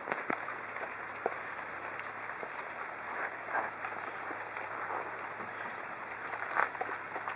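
Samoyed dog eating wet meat chunks from a plastic bowl: irregular chewing smacks, slurps and small clicks throughout.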